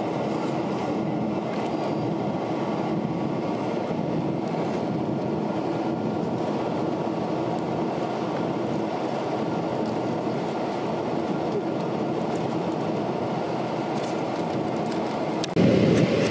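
Steady cabin noise of a jet airliner in flight, heard from a window seat, with faint steady engine tones in it. Near the end it cuts abruptly to a louder, deeper rush of cabin noise.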